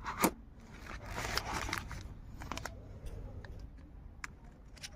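Handling noise from a DJI Action 2 camera and its front-screen battery module being fitted together by hand. There are two sharp plastic clicks right at the start, then rustling about a second in and scattered light taps.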